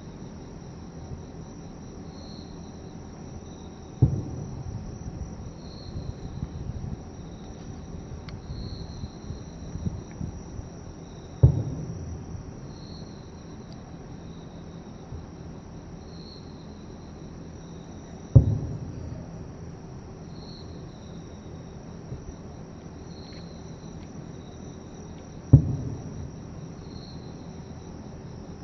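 Four distant firework shells bursting, each a sharp boom trailing off over about a second, roughly seven seconds apart. Insects chirp steadily underneath in a pulsing rhythm.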